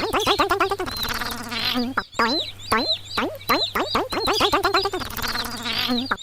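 A looped run of quick squeaky calls that rise and fall in pitch, about two a second, breaking into a denser warbling stretch. The whole pattern repeats about every four seconds over a steady low hum.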